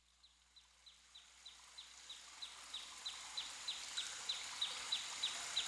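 A bird repeating a short, high, downward-sliding call about three times a second, growing steadily louder over a soft background hiss.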